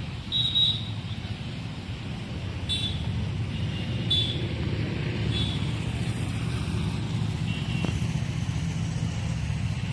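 A steady low engine rumble from somewhere off in the distance, with five short, high-pitched chirps spread across it.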